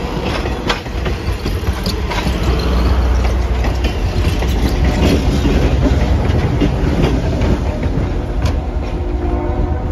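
Passenger railcars rolling past close by: a steady rumble of wheels on rail with scattered sharp clicks over the rail joints. Near the end a trailing diesel locomotive goes by, adding a steady engine hum.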